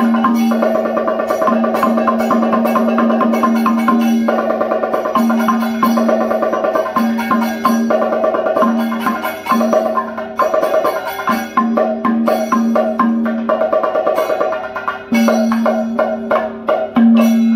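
Kathakali percussion accompaniment: drums beaten in quick, dense strokes with the ringing of bell-metal gong and cymbals, over a held tone that keeps breaking off and returning.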